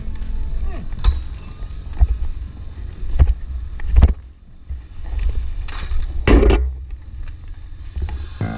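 BMW R1150GS Adventure motorcycle under hard braking on a dirt track, clunking and rattling with a run of sharp knocks. The loudest is a metallic impact about four seconds in as it hits a steel pipe gate. A longer crash comes about two seconds later as the bike goes down on its side.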